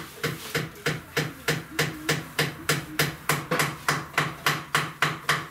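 Hammer striking in a quick, even rhythm, about four sharp blows a second.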